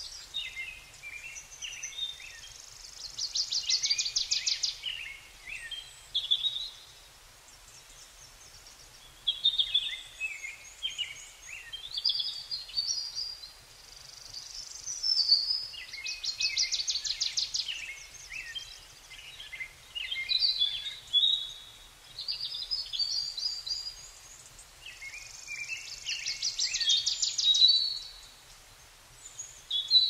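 Songbirds singing in bursts of varied chirping phrases, broken by short pauses, with three fast high trills of rapidly repeated notes standing out as the loudest parts.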